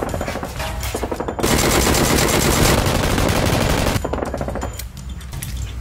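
Rapid automatic gunfire, many shots a second, loudest and densest from about a second and a half in until about four seconds, then thinning to quieter scattered shots.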